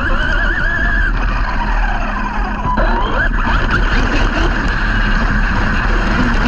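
Brushless electric motor of a large RC off-road truck whining, its pitch rising and falling with the throttle, over a steady rush of noise.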